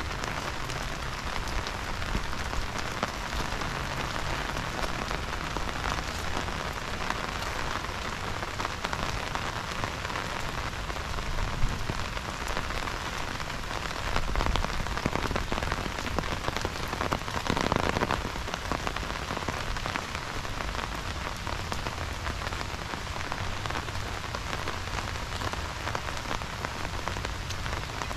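Heavy rain falling steadily: a dense hiss of countless drops, with fine individual drop ticks through it. It grows louder for a few seconds around the middle.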